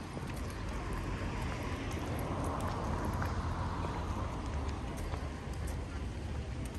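Town street ambience: a vehicle passes, its noise swelling and then fading over a couple of seconds above a low, steady rumble, with scattered faint clicks.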